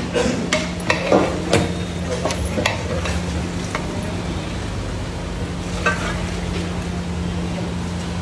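Long metal spatula stirring mutton in masala in a large aluminium pot, sizzling, with sharp clinks and scrapes against the pot in the first few seconds, over a steady low hum. In the second half broth is poured into the pot from a saucepan.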